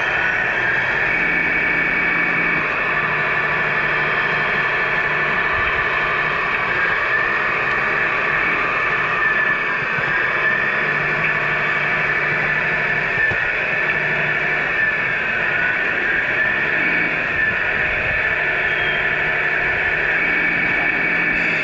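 1/14 scale Tamiya RC semi trucks running, a steady mechanical whine from the electric motor and gearbox, with faint glides up and down in pitch as the throttle changes.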